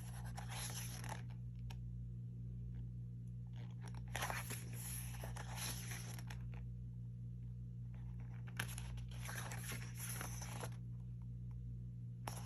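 Pages of an album photobook being turned and handled, with paper rustling three times, over a steady low hum.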